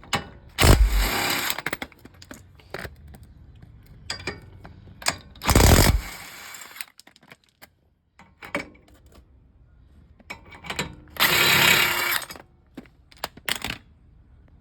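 Power impact wrench running the lower ball joint's three fastener nuts off, in three short bursts of about a second each, with small clicks and clinks of nuts and socket in between.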